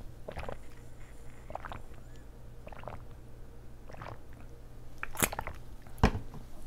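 Water gulped from a plastic bottle: five swallows, a little over a second apart, close to the microphone, with a sharper click near the end.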